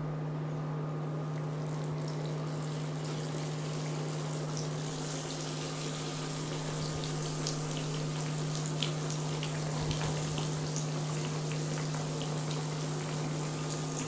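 Petulla dough frying in hot sunflower oil: a steady sizzle with scattered small pops, swelling a couple of seconds in, over a constant low hum.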